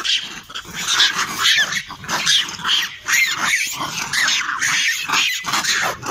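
Rhesus macaques giving harsh, overlapping screeching calls, several a second, as one faces the camera open-mouthed in a threat display.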